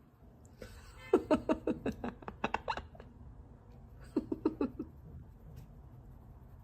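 A person giggling in two short bursts of rapid laughter, the second briefer than the first.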